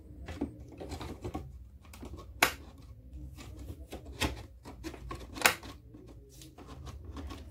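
Plastic air vents being pressed and fitted into a Ford Sierra XR4 dashboard: a run of small clicks and knocks, with two sharp snaps about two and a half and five and a half seconds in.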